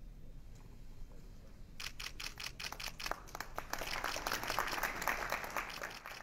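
Camera shutters clicking in rapid bursts, several cameras at once, starting about two seconds in and growing denser.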